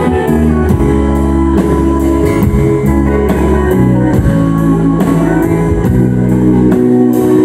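Live country band playing without singing: acoustic guitar strumming over bass and drums, which keep a steady beat of about two strokes a second.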